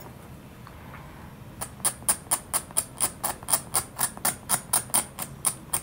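Hobby knife blade scraping a plastic servo plug in quick short strokes, about five a second, starting a second and a half in, scuffing the plug so the glue gets a better mechanical bond.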